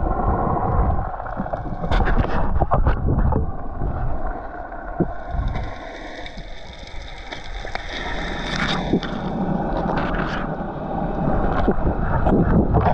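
Muffled underwater sound picked up by a GoPro in its housing: a steady low rush of moving water, with scattered sharp clicks and ticks.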